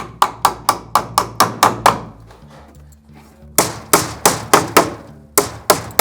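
Hammer driving nails with quick, even strikes, about four a second, in three runs broken by short pauses, fixing electrical boxes to the wall framing. Background music plays faintly underneath.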